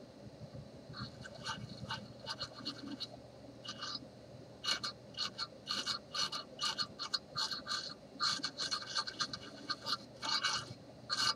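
A series of short scratching or rubbing strokes, several a second and irregular, starting about a second in and thickest in the second half.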